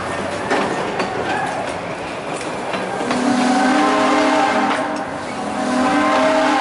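Train rolling with clattering wheel clicks, then, about three seconds in, a narrow-gauge steam locomotive's chime whistle sounds several tones at once in two blasts, the second carrying on to the end.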